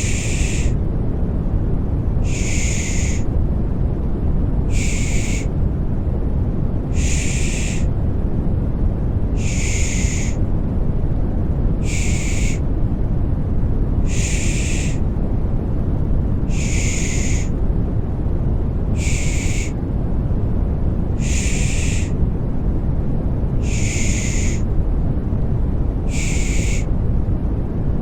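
Rhythmic 'shh' shushing repeated about once every two and a half seconds over a steady deep rumbling white noise. This is a looped baby-soothing shush sound.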